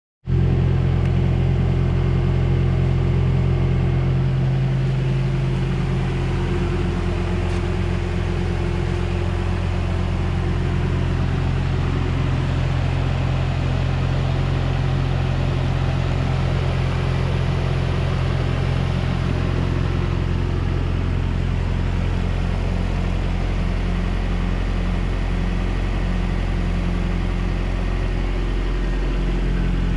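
Toyota pickup truck engine idling steadily, a low even rumble with no revving.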